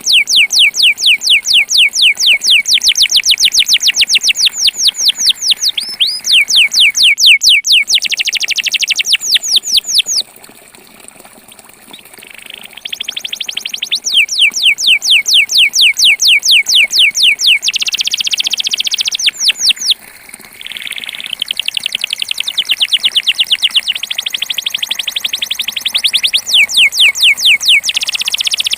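Belgian canary singing its campainha song: long, fast trills of the same rising whistled note repeated many times a second, moving from one trill to the next. The song drops away briefly about ten seconds in and again around twenty seconds, then resumes.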